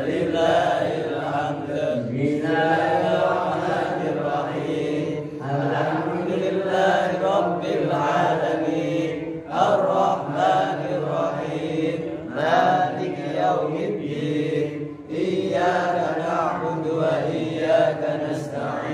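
A man reciting the Qur'an in Arabic in a melodic chant into a microphone, long held notes that bend in pitch, in phrases broken by short pauses.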